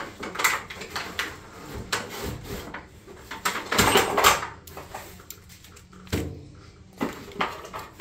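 Packing paper and a cardboard box rustling and crinkling as a lock set is unpacked, with light clacks of parts being handled and set down. The rustling is busiest and loudest about four seconds in.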